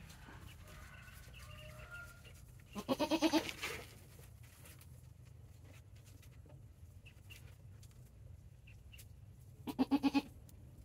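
Goat bleating twice, each a wavering, quavering bleat of about a second: the first about three seconds in, the second near the end.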